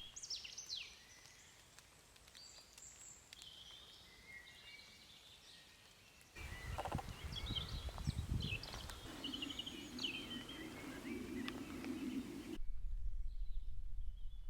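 Several small woodland birds singing and calling, short chirps and trills. Partway through come some low thuds, then a few seconds of steady low rushing that stops suddenly.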